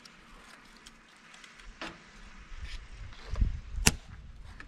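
Dry kindling sticks being picked up and handled, giving a few sharp wooden clicks, the loudest just before four seconds in. Wind buffets the microphone in low rumbles.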